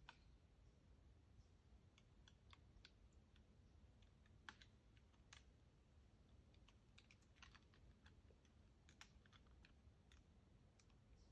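Near silence, with faint, irregular small clicks and ticks scattered through it.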